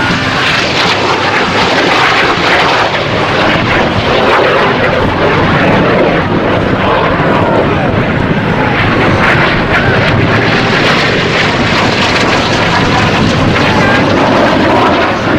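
Jet engines of Snowbirds CT-114 Tutor aircraft running loud and steady as the formation flies past.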